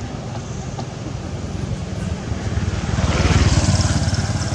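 A motor vehicle's engine running as it passes close by, growing louder to a peak about three and a half seconds in, then fading.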